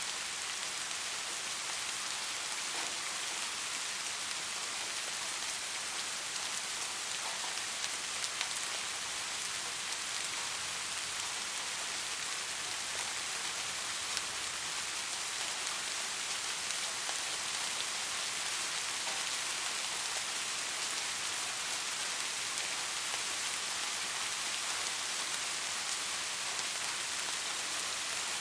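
Steady rain falling, an even hiss of many drops with a few sharper drop ticks here and there.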